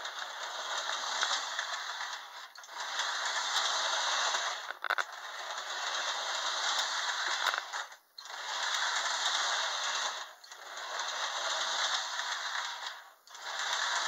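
Lionel 8203 toy steam locomotive's electric motor and wheels running with a steady rattle on three-rail track, cut off briefly five times, about every two to three seconds, as the power is switched to run it forward and in reverse.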